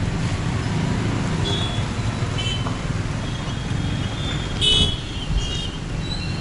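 Street traffic on a waterlogged road: a steady low rumble of engines, with several short, high-pitched horn beeps, the loudest a little over four and a half seconds in.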